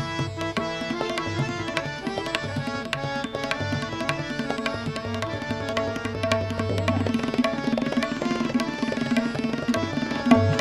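Tabla playing a quick run of strokes over a steady tanpura drone, in a Hindustani classical instrumental interlude between sung lines.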